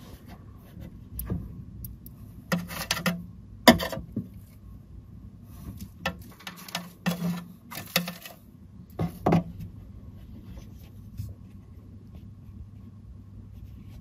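Scattered soft knocks and rustles, several close together in the middle seconds, over a faint steady hum.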